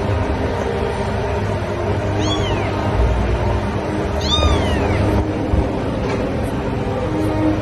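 A long-haired white kitten mewing twice, about two seconds apart, each a short high-pitched call that rises and falls, over a steady background hum.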